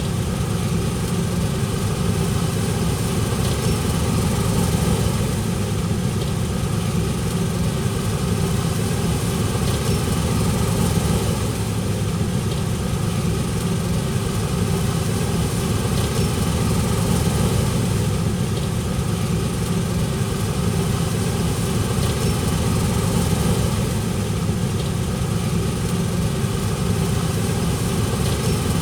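Large farm tractor's diesel engine running steadily at constant speed, a low even drone.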